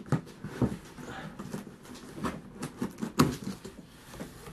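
Box cutter slitting packing tape and a cardboard shipping box's flaps being worked open: irregular scrapes, rustles and clicks, with one sharper crack about three seconds in.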